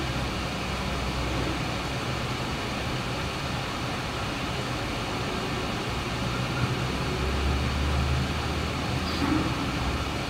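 Steady background room noise: an even hiss with a low hum, and a deeper rumble that swells about seven seconds in and fades a couple of seconds later.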